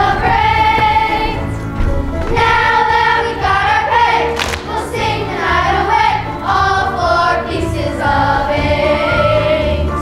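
Children's choir singing in unison with musical accompaniment.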